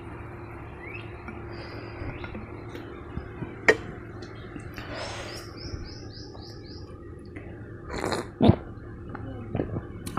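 A small bird chirping: a quick run of about six short, high, falling notes in the middle, over a steady background hiss. A sharp click comes a little before it, and two loud knocks come about two-thirds of the way through.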